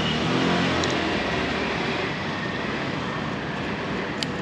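Steady rushing background noise, with a faint click about a second in and another near the end.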